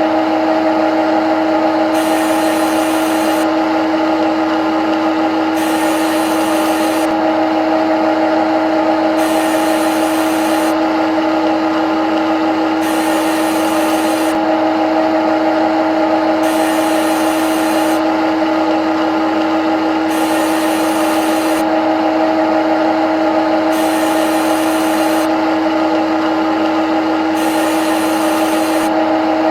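CNC lathe running as it cuts a left-hand thread: a steady machine hum, with a higher hiss that comes and goes about every three and a half seconds.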